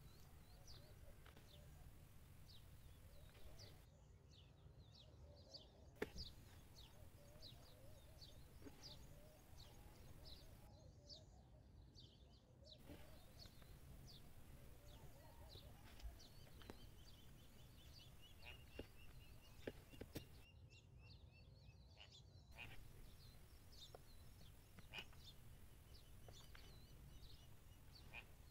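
Near silence: faint room noise with a low hum and many faint bird chirps, plus a few soft clicks.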